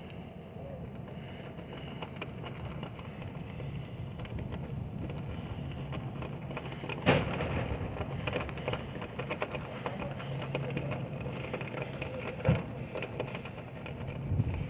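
Lock-picking tools working in a door-knob lock: light metallic clicking and scraping, with two sharper snaps about seven and twelve seconds in.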